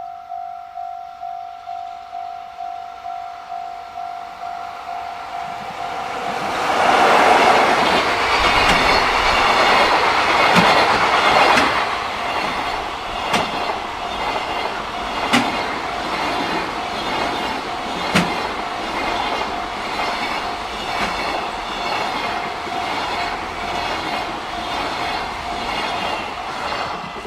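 A Japanese level-crossing warning bell rings steadily at about two strikes a second. About six seconds in, a JR Freight train comes through the crossing: a loud rush of wheels on rail with a regular clack from the wheels over the rail joints, while the bell keeps ringing.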